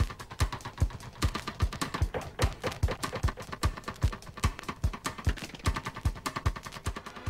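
Drums playing a fast, driving beat: deep kick-drum hits several times a second with sharp, crisp strokes between them.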